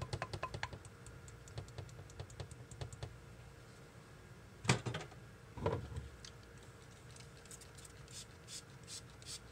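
A wire whisk beats thick hot-process soap batter at the Vaseline stage in a slow-cooker crock, clicking rapidly and then slowing and stopping. Near the middle come a sharp knock and a duller one as the whisk is set down. Near the end a fine-mist spray bottle spritzes water onto the batter in a quick series of short hisses.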